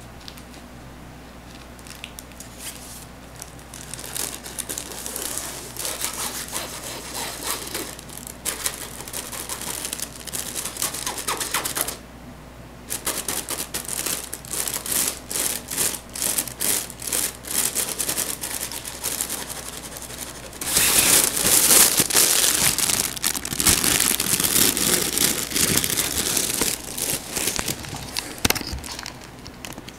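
Vinyl cat play tunnel rustling and crinkling in quick scratchy strokes as it is jostled. A short lull comes near the middle, and the rustling is louder and nearly continuous through the last third.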